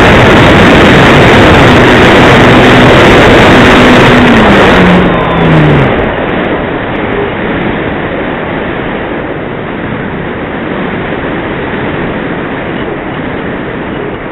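Electric motor and propeller of a Sky Climber RC glider running hard, heard through an onboard camera's microphone buried in wind and prop-wash noise. About five seconds in the motor's pitch falls away and the sound drops to a quieter, steady rush of air.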